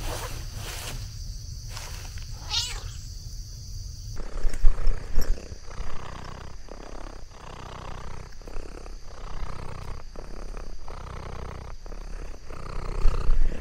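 Orange tabby cat purring in a steady rhythm, with a short rising chirp about two and a half seconds in and a few low thumps around four to five seconds in.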